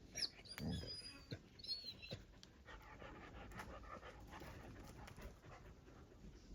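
Dogs making several high, thin whines in the first two seconds, then breathing with steady panting.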